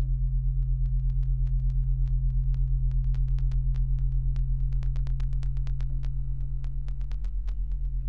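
Steady low electrical hum that pulses about five times a second, with scattered sharp crackling clicks, thickest in the middle of the stretch.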